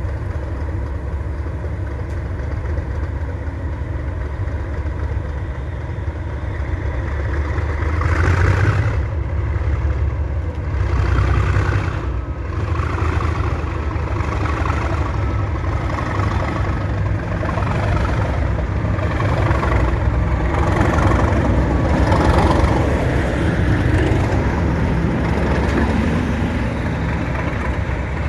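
Class 37 diesel locomotive's English Electric V12 engine working under power as the train pulls away, a deep steady throb that swells louder several times.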